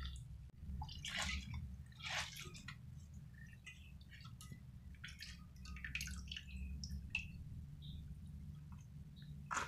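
Water splashing and dripping as a hand rubs and swishes small bitter berries in a steel plate of water to wash them: irregular small splashes and drips over a low steady hum.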